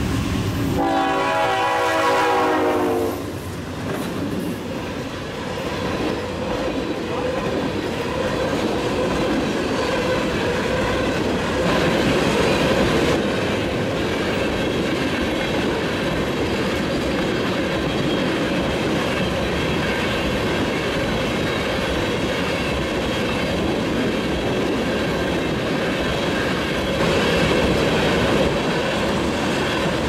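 Norfolk Southern diesel freight locomotive blowing its horn as it passes close by, the horn ending about three seconds in. Then a long train of loaded tank cars rolls past steadily, with a clickety-clack of wheels over the rail joints.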